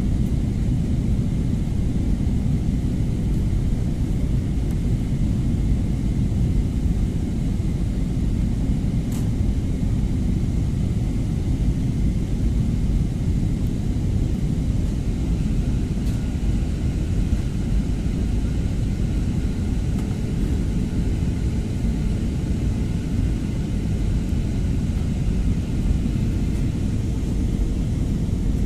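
Steady low rumble of an airliner's engines and rushing air, heard from inside the passenger cabin, with a faint steady hum joining about two-thirds of the way in.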